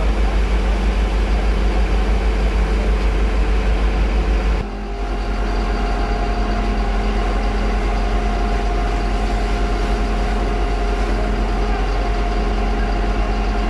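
A fire engine's engine running steadily, with a deep even rumble, as it drives the pump feeding the firefighters' hoses. About four and a half seconds in, the sound drops a little and changes slightly.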